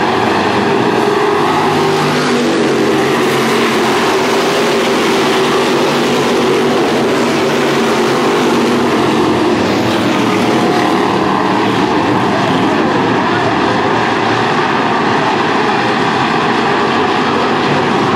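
Several V8 Thunder Stock cars racing on a dirt oval, their engines running loud and steady with overlapping engine notes throughout.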